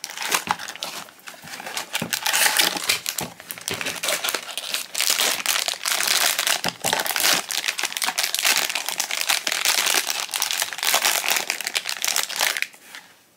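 Foil blind-box bag crinkling and crackling as it is handled and torn open, with dense, irregular crackles that die away near the end.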